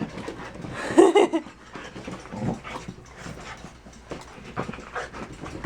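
Australian Shepherd dogs panting and scuffling in wild play after a bath, with scattered clicks and knocks. A brief loud whine comes about a second in.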